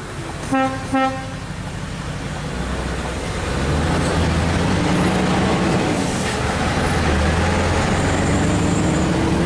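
Two short horn toots, then the Scania R580's V8 diesel engine pulls harder: its low drone swells about three seconds in and holds, with a faint whine that rises and falls twice.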